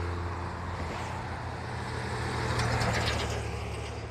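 Road traffic passing on a highway: the drone of one vehicle going away, then another vehicle passing, loudest about three seconds in, with a few short clatters.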